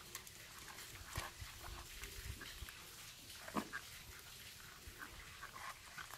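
Several cats eating dry kibble from a plate together, crunching and chewing in many quick, irregular clicks, with a couple of louder crunches.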